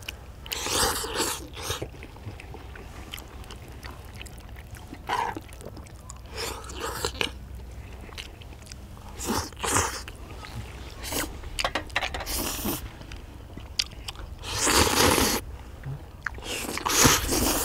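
People slurping noodles in black bean sauce and chewing, in repeated loud slurps about a second long, several seconds apart.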